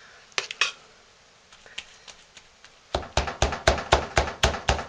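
A metal spoon knocking and scraping against a slow-cooker crock while scooping out thick cooked soap: a quick run of sharp clinks starting about three seconds in, after a couple of faint clicks at the start.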